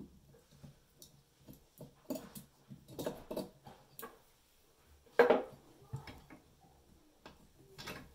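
Light metallic clicks and taps of a hex key working the set screw on a chrome faucet handle, with one louder knock about five seconds in.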